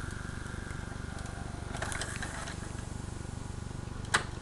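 VCR tape mechanism of a Panasonic VCR/DVD combo ejecting a VHS cassette: a steady motor hum, mechanical clicking and rattling about two seconds in, and a sharp click just after four seconds.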